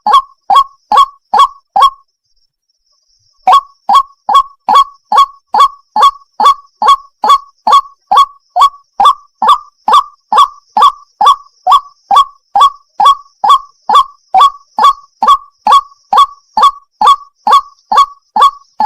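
White-breasted waterhen (ruak-ruak) calling: a loud, fast run of short, sharp notes, about two a second, broken by a pause of about a second and a half around two seconds in, then running on. It is the female's call to a male, used as a lure for hunting.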